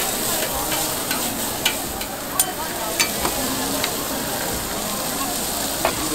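Bean sprouts sizzling on a hot flat iron griddle, with sharp clicks and scrapes of a metal spatula and tongs against the plate, several times over.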